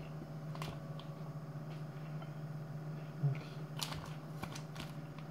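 Scattered light taps and clicks of hands handling food and utensils on a kitchen worktop, a few near the end, over a steady low hum.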